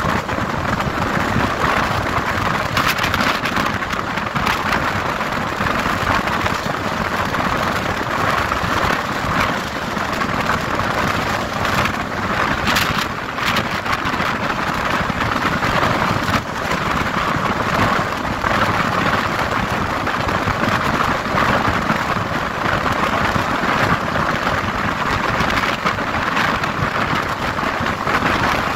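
Express passenger train coach running at high speed, heard at an open door or window: a steady rush of wind and wheels rolling on the rails, with a few sharper clacks along the way.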